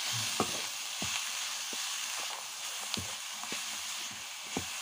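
Chopped radish and radish leaves sizzling in oil in a pan while a wooden spatula stirs them, its strokes against the pan coming about twice a second over the steady frying hiss.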